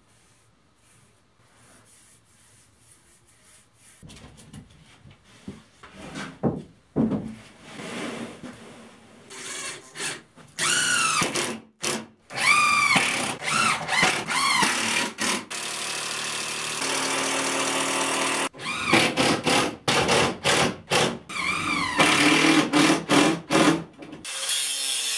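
Cordless drill driving screws into OSB sheathing: repeated short runs of the motor, its whine rising and falling in pitch as the trigger is squeezed and let go. Near the end a steadier, louder noise takes over.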